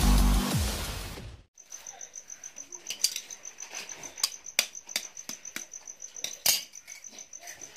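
Electronic intro music with heavy bass fades out in the first second and a half. Then a cricket chirps steadily, a high pulsing trill of about seven pulses a second, with several sharp clicks over it in the middle.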